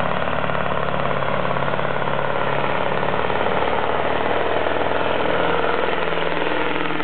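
V8 Mack Superliner semi truck's diesel engine running steadily and loudly under load, pulling the weight sled.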